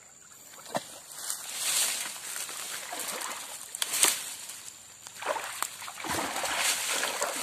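A person moving through brush at a muddy stream's edge: leaves and dry palm fronds rustling, with water splashing and sloshing, in uneven swishes. The loudest one is sharp and comes about four seconds in.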